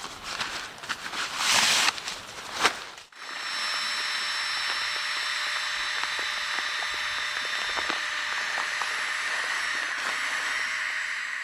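Rustling and clicking handling sounds, then a steady hiss with faint high, whistle-like tones that runs on evenly after an abrupt change about three seconds in.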